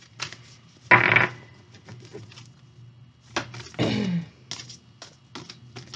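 Light clicks and taps of oracle cards and their heart-shaped deck being handled, with a louder brushing sound about a second in. A short hum falling in pitch comes from the reader around four seconds in.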